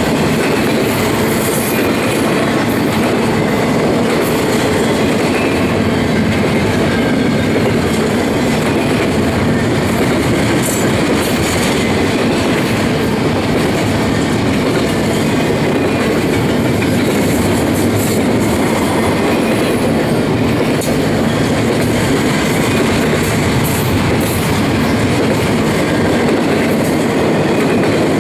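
Double-stack intermodal well cars rolling past: a loud, steady rumble of steel wheels on the rails, with a few brief sharp clicks.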